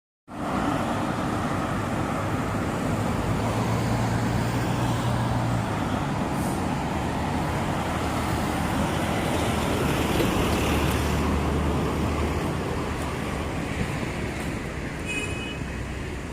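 Steady urban road traffic noise: passing cars and buses, with a heavier engine drone now and then, and a brief high squeak near the end.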